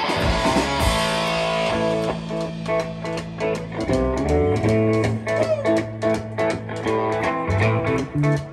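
Live band playing: an electric guitar over a drum kit, with steady drum and cymbal strokes coming in a couple of seconds in.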